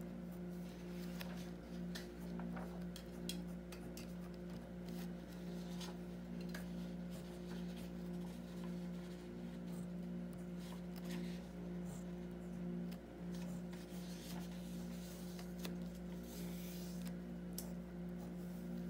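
Pen tip scratching and tapping on a paper card as characters and letters are written: a dense run of short scratches and ticks, with a longer scratch near the end. Under it runs a steady low hum.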